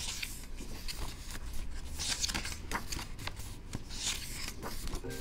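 Pages of a photobook being turned and handled by hand: paper swishes about every two seconds, with small taps and rustles between them.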